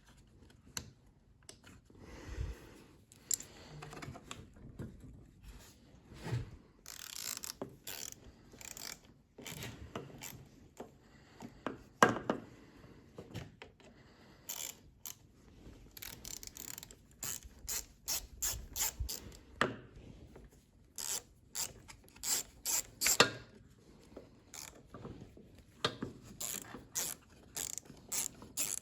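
Ratchet wrench clicking in short quick runs, with a few louder knocks of tools or parts.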